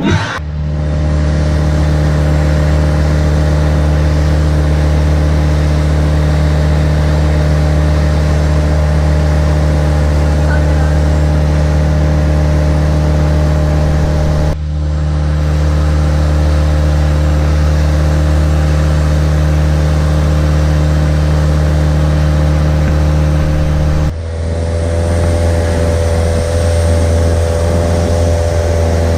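A motor engine running steadily with a deep, even drone, in three stretches that change abruptly about halfway through and again near the end.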